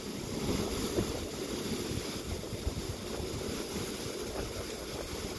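Sea surf surging and churning inside the Kiama Blowhole's rock chasm, a steady rush with wind buffeting the microphone.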